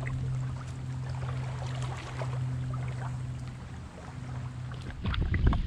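Kayak paddle strokes and light water splashes in shallow water, under a steady low hum. About five seconds in, heavy wind noise on the microphone takes over.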